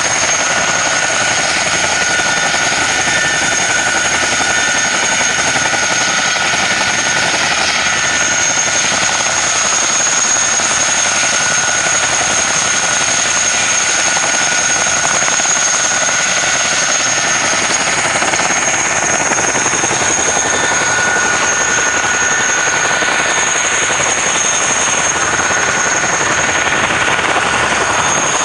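US Army helicopters, UH-60 Black Hawks and a twin-rotor CH-47 Chinook, running on the ground with rotors turning: a loud, steady turbine and rotor noise with two steady high-pitched whines.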